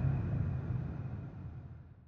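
Closing soundtrack of a low rumble with faint steady tones above it, fading out steadily toward silence.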